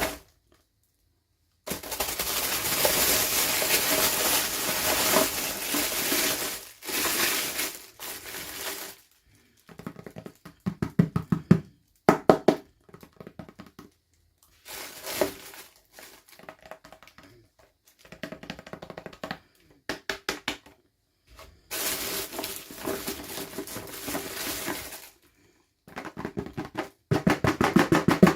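Toy packaging being handled and opened: long stretches of crinkling, rustling noise alternate with quick runs of rapid clicks, separated by sudden silent gaps.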